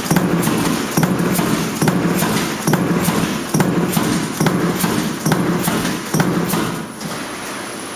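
Strip-fed mechanical stamping press cycling continuously: each stroke a clunk and a heavy rumble, about one every 0.9 seconds, eight strokes in all, dying away about seven seconds in.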